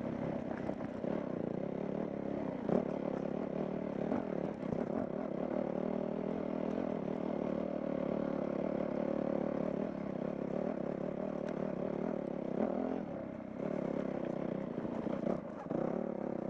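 Dirt bike engine running steadily under way, with a few short knocks and clatter.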